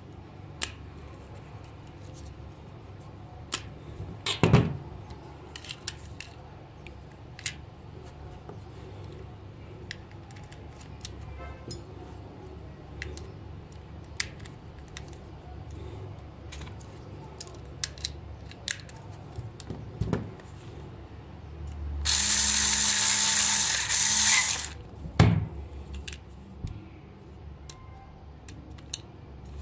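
Hard plastic parts of a toy praying mantis being handled and fitted together: scattered small clicks and a few knocks. About 22 seconds in, a small electric motor whirs steadily for about two and a half seconds.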